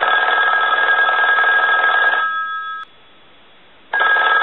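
Western Electric 10-key Touch-Tone desk telephone's bell ringing, rung from a line analyzer: one ring of about two seconds that fades out, then after a short pause the next ring starts near the end. The ringer is working on the ring cycle.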